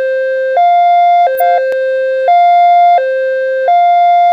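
Ambulance hi-lo siren: two steady tones, one higher and one lower, alternating about every three-quarters of a second with no glide between them. It is a siren pattern kept for the most urgent emergencies.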